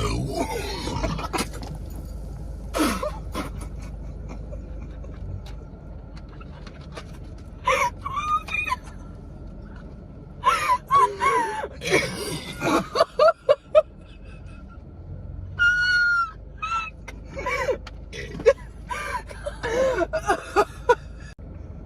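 Girls gasping and giggling while chugging Sprite: a loud breathy gasp at the start, then short bursts of high-pitched giggling and squealing through the second half.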